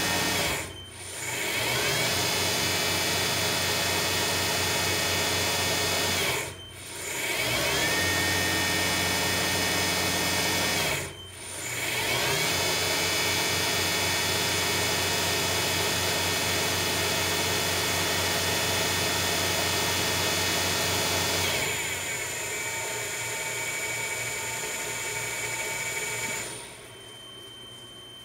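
VFD-driven spindle of a Grizzly G0704 CNC mill conversion running at about 5000 RPM with a steady whine. It is braked to a quick stop and spun back up three times, each dip lasting about a second, with the direction switching between forward and reverse. The rapid stops come from the drive's braking resistor working as it should. Late on, the whine glides down and fades, then drops away near the end, leaving a faint high tone.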